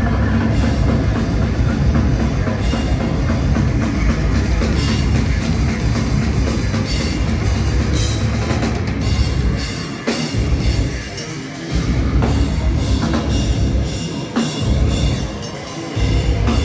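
Heavy metal band playing live at full volume: pounding drum kit with bass drum under dense amplified band sound. The heavy low end drops out briefly twice in the second half.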